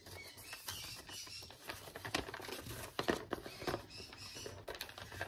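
Mail packaging and card holders being handled by hand: light rustling of paper and plastic with scattered sharp clicks and taps.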